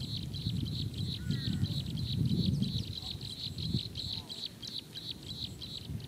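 Fast, high-pitched chirping repeating several times a second without a break, over a low rumbling noise that swells about two seconds in. A couple of faint sliding bird calls come in about a second in.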